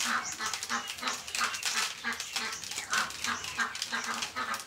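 Dried corn kernels being shelled off the cob by hand, crackling and rattling into a woven basket in quick, even strokes, about three a second.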